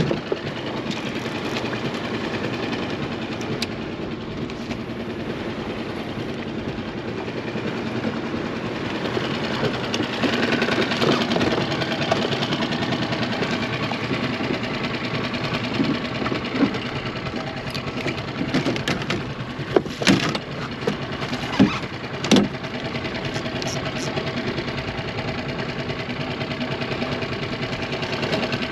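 Small outboard motor idling steadily, with a few sharp knocks about two-thirds of the way through.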